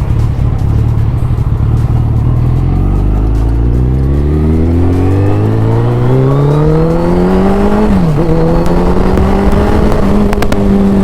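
2023 Suzuki Hayabusa's inline-four engine accelerating. Its pitch climbs steadily for several seconds, drops sharply at a gear change about eight seconds in, then holds nearly steady.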